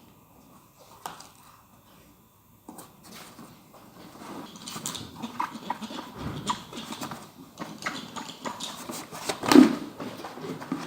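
Handling noise as a dry suit's glued neck seal is pressed into place: irregular rubbing, rustling and light knocks, starting a few seconds in and growing busier, with one louder thump near the end.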